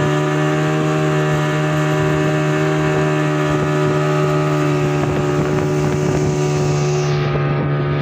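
Outboard motor on a wooden river longboat running steadily at cruising speed: an even drone that holds one pitch, with the rush of water along the hull beneath it.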